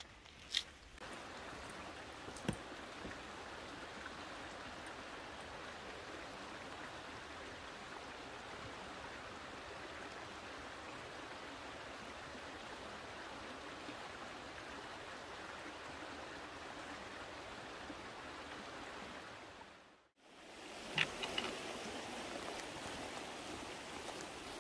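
Small rocky mountain creek running steadily over stones. About 20 seconds in, the sound fades out completely, then comes back with a few light knocks over a steady background.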